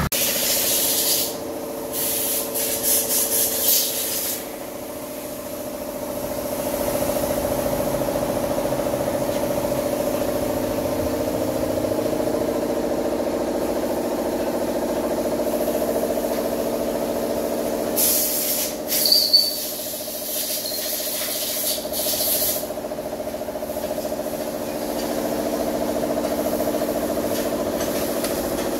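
Farm machine engine running steadily, with two spells of hissing: one about a second in lasting a few seconds, another about eighteen seconds in.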